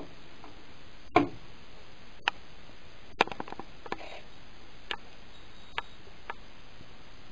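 A handheld K2 EMF meter set down on a wooden table with a single knock about a second in, followed by scattered faint clicks and taps over a steady low hiss.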